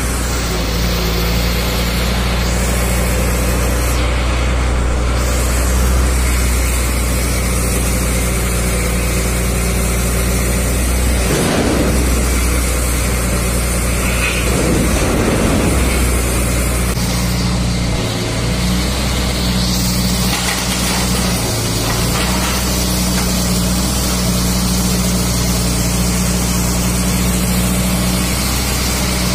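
KAMAZ truck's diesel engine running steadily while it powers the truck-mounted hydraulic grapple crane. Two brief rushes of noise come through about twelve and fifteen seconds in.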